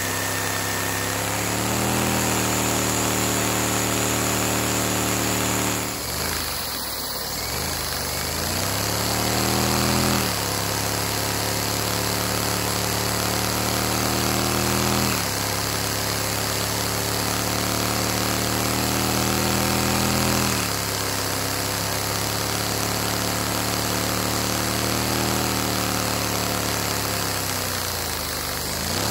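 LEGO Technic two-cylinder boxer vacuum engine running steadily with a continuous mechanical rattle. Its pitch dips and recovers several times, about 6, 15 and 20 seconds in.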